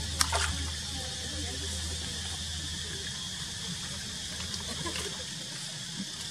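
Monkeys swimming in a pond, with faint water sloshing and lapping over a steady hiss. A low hum fades out about five seconds in, and there are two sharp clicks just after the start.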